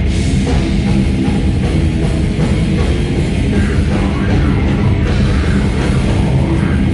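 Heavy metal band playing live, loud and dense: distorted electric guitars, bass and a drum kit, with a cymbal crash right at the start.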